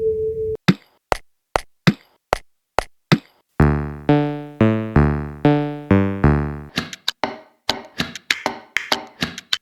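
Electronic music built from sampled found sounds: sharp percussive clicks about two a second, then a run of six low synth notes, then a quicker, busier click beat for the last few seconds.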